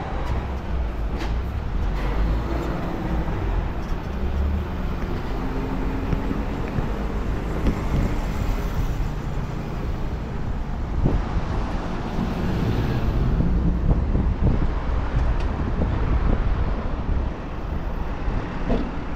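Road traffic on a city arterial road: cars and other motor vehicles passing steadily with a heavy low rumble.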